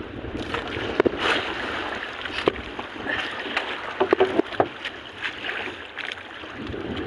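Sea water sloshing against a small fishing boat's hull, with wind on the microphone and a few sharp knocks and clicks: one about a second in, another midway and a quick cluster just after.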